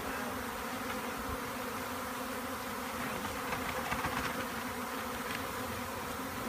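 A large swarm of honey bees buzzing steadily, with many bees in flight, the hum swelling a little about four seconds in.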